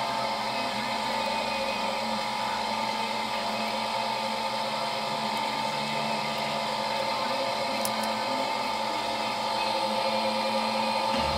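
Steady mechanical hum of a running motor or fan, holding several constant tones without speeding up or slowing down, with a little more low rumble near the end.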